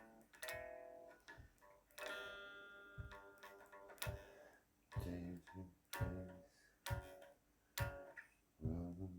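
Acoustic guitar playing an instrumental passage: plucked and strummed notes ringing out, with sharp percussive hits about once a second and low bass notes from about halfway through.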